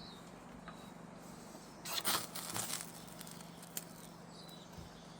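A ferro rod struck with a square cobalt high-speed-steel striker about two seconds in: a rasping scrape of about a second that throws sparks onto fatwood shavings. A few faint ticks follow.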